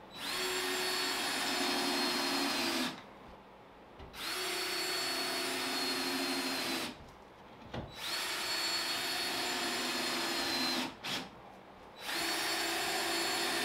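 Cordless drill driving star-drive screws through cement board into wall studs: three screws run in one after another, each a steady whine of about three seconds that sags slightly as the screw seats, and a fourth started near the end.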